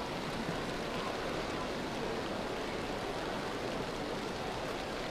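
Steady hiss of an indoor diving pool hall, a running-water or rain-like noise that holds even throughout with no distinct event.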